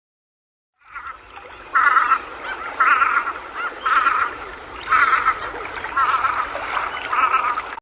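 A bird calling, starting about a second in: a loud call with a quavering pitch, repeated about once a second, six times, over a faint hiss from the field recording.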